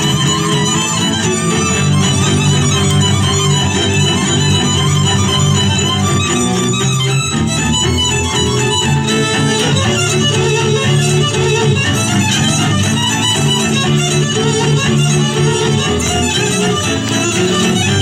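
Fiddle-led Hungarian folk dance music for a legényes, a violin playing the tune over a steady low string accompaniment.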